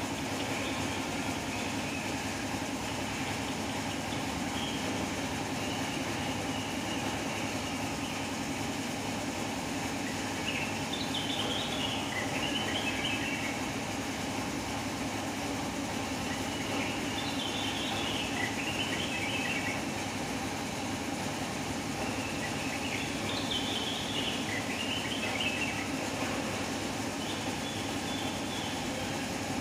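Cucak wilis (trengganis) songbird singing: bouts of quick, chattering and twittering phrases a few seconds long, coming about every six seconds, over a steady low background rumble.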